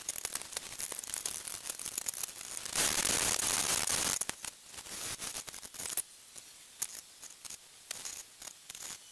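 Hand work on a wooden board: small clicks and knocks, with a steady scraping rub about three to four seconds in, the loudest sound.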